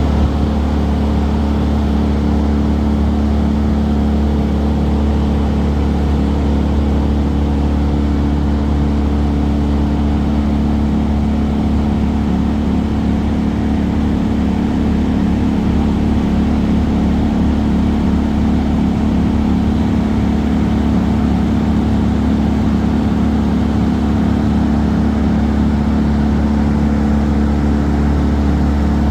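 An engine running steadily at one constant speed, with a strong low hum, from the equipment working on the tree removal.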